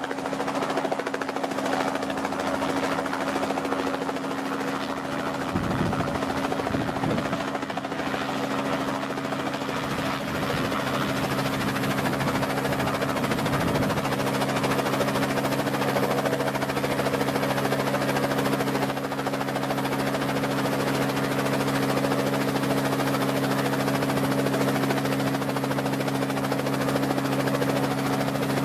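Robinson R44 helicopter running steadily at close range: the Lycoming six-cylinder piston engine and two-blade main rotor make an even, unchanging drone as it hovers low and settles onto its skids. For several seconds, about a fifth to halfway in, gusts of rotor wash rumble on the microphone.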